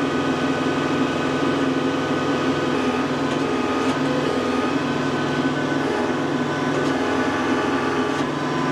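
Kubota compact tractor's diesel engine running steadily at raised revs while the front loader lifts a pallet of feed on pallet forks.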